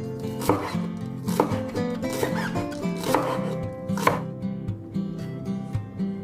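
A kitchen knife chopping on a cutting board, about five separate strokes roughly a second apart, over background guitar music.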